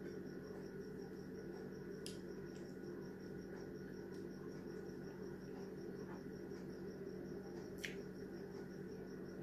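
Quiet eating by hand: soft chewing and fingers working rice, with two sharp mouth clicks, about two seconds in and near the end. Under it runs a steady low hum and a faint high chirping that pulses several times a second.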